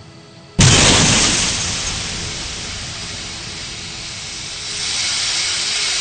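A sudden loud blast about half a second in, dying away into a steady rushing hiss that swells again near the end.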